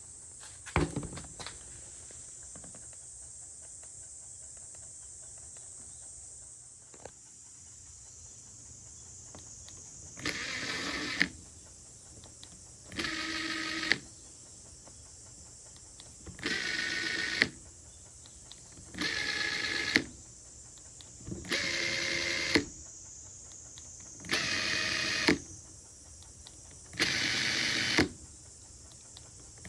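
Makita TP141D cordless impact driver's motor run with no load in short trigger pulls, each about a second long and every two and a half to three seconds, starting about a third of the way in. The whine's pitch differs from run to run. Before that there are a few clicks and a faint steady hiss.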